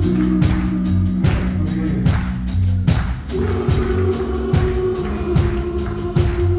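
Live rock band playing: drums on a steady beat under held bass and keyboard notes.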